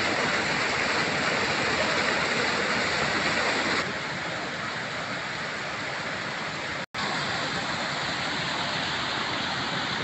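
Small waterfall pouring over rocks into a shallow pool: a steady rush of falling, splashing water. It drops a little in loudness about four seconds in and cuts out for an instant near seven seconds.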